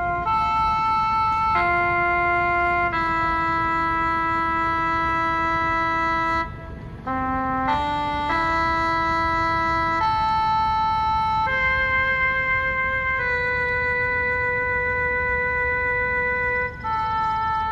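A slow, mournful solo melody on a wind instrument, played for a minute of silence. It holds long steady notes that change every second or two, with a brief pause and a few quicker notes about seven seconds in.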